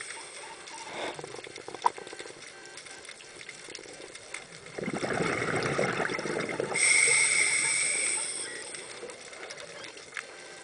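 Scuba regulator breathing underwater: a burst of exhaled bubbles burbles out about five seconds in, then the regulator hisses through an inhalation.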